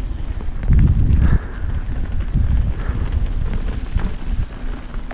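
Mountain bike riding fast down a rough trail: wind on the microphone and tyre rumble, with knocks and rattles of the bike over bumps, loudest about a second in.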